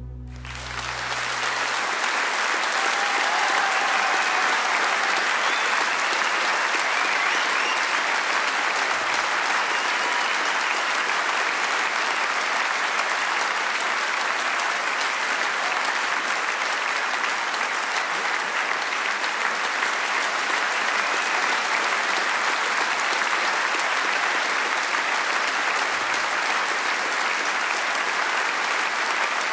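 Large audience applauding, the clapping swelling up over the first few seconds as the music's last low note dies away, then holding steady.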